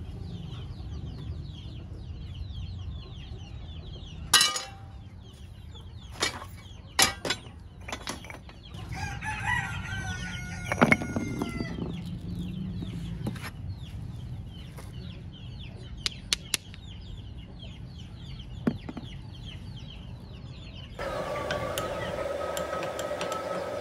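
Chickens clucking, with a rooster crowing from about 9 to 12 seconds in, and a few sharp knocks scattered through. Near the end a steady machine hum begins.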